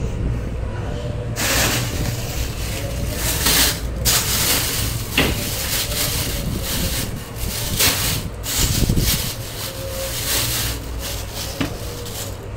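Rubbing and rustling as groceries are handled on a woven plastic tray, in irregular scrapes, over a steady low hum that fades about two-thirds of the way through.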